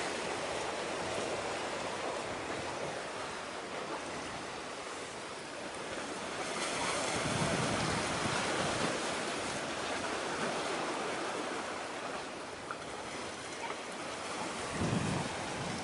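Sea waves washing with wind, a steady hiss that swells about halfway through, and a low gust of wind buffeting the microphone near the end.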